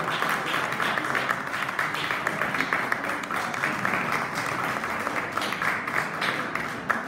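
Audience applauding: a dense, steady crowd of hand claps.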